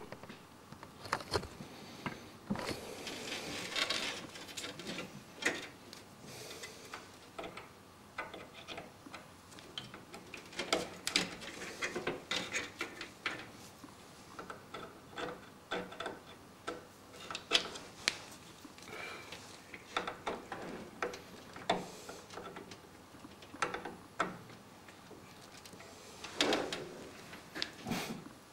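Power cables and plastic connectors being handled and plugged in inside a PC case: irregular clicks, taps and rustling of cable against the case.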